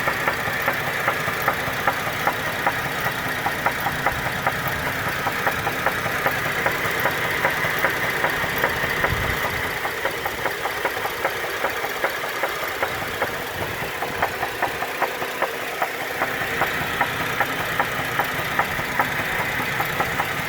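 2010 GMC Acadia's 3.6-litre V6 idling with a sharp, regular knock repeating a few times a second. The engine has logged misfire codes on cylinders 1, 3 and 5 along with a random-misfire code.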